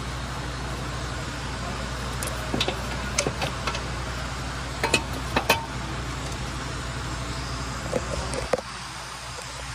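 Sharp metallic clicks and knocks as a metal engine-bay cover is handled and set back in place over the starter, in clusters a couple of seconds in, around five seconds in and near the end. A steady low hum runs underneath and drops away shortly before the end.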